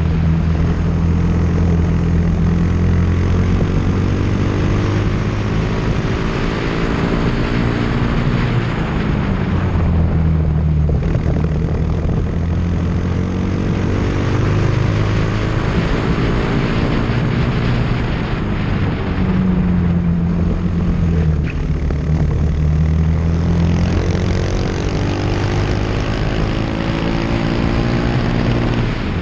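Onboard sound of a formula racing car's engine at full speed around a circuit, its pitch repeatedly climbing through the gears and dropping under braking about 9 and 19 seconds in, with a steady rush of wind and tyre noise.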